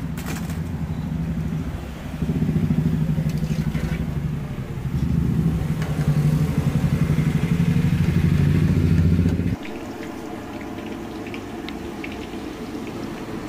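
A low-pitched motor running with a pulsing hum. It grows louder about two seconds in and cuts off suddenly about nine and a half seconds in, leaving a quieter background.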